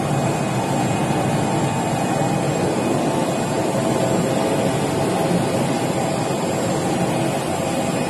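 Steady running noise inside the cabin of the Batara Kresna diesel railbus under way: engine and wheels on the rails make an even, unbroken rumble.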